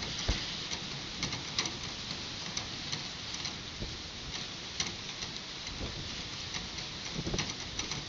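Strong wind of about 28 mph with rain: a steady hiss and a rough low rumble of wind on the microphone, with scattered sharp ticks of drops striking close by.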